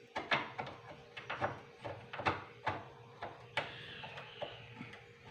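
A loose doorknob being handled and taken off the door: irregular sharp metal clicks and knocks from the knob and lockset, about a dozen over a few seconds.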